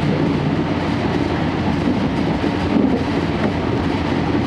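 Steady running noise inside a 12-series passenger coach (SuHaFu 12) on the move, with the drone of the coach's own diesel generator engine underneath.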